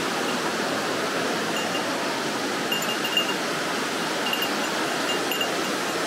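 Mountain stream rushing over smooth rock slabs: a steady, even rush of water.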